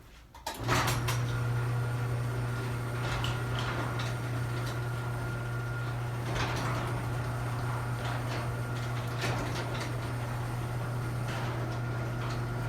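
Electric garage door opener running as the door opens: a steady motor hum starts about half a second in and stops near the end, with rattling and clanking from the moving door throughout.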